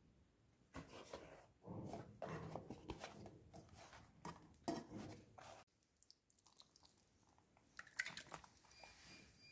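Faint crinkling and rustling of a dry flour tortilla being lifted and handled in a frying pan. The sound cuts off suddenly a little past halfway, leaving only a few faint clicks.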